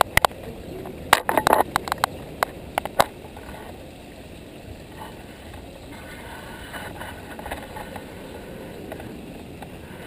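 Water from a small pondless waterfall trickling and splashing steadily over the rocks. A flurry of sharp clicks and knocks comes in the first three seconds.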